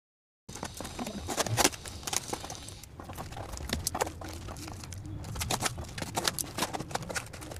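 Scissors snipping through plastic packing tape on a cardboard parcel, with the box handled and rustled, an irregular run of sharp clicks and crinkles starting about half a second in.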